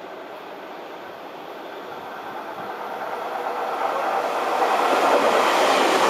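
Tobu 30000 series electric train approaching and running past close by, its running noise on the rails growing louder over the first few seconds and staying loud as the cars go by.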